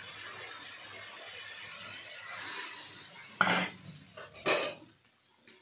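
Crabs sizzling in a wok, then a metal spatula scraping and clattering against the wok twice as the stir-fry is turned.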